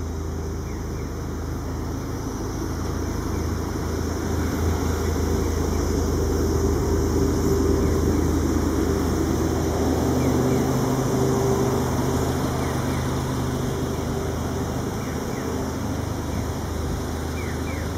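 A motor vehicle's engine running, its sound swelling and then easing off, with its low hum stepping up in pitch about halfway through.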